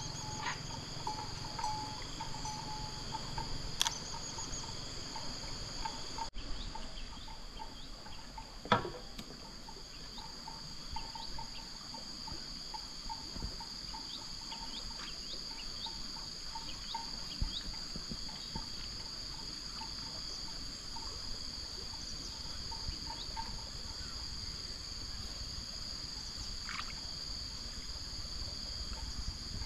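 Insects shrilling steadily in a high drone, with a lower pulsing chirp repeating beneath it. One sharp click about nine seconds in.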